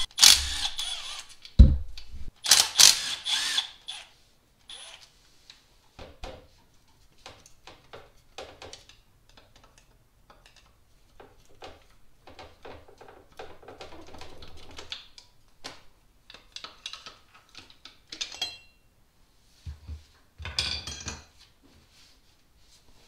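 Cordless driver spinning out the 8 mm bolts of a Ford Focus water pump in short bursts during the first few seconds. After that come scattered light clicks and clinks of tools and loosened bolts, with one louder clatter near the end as the pump comes off.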